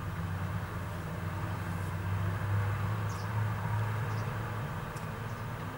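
Wheel loader's diesel engine idling steadily, with a few faint scrapes of shovels on the road surface.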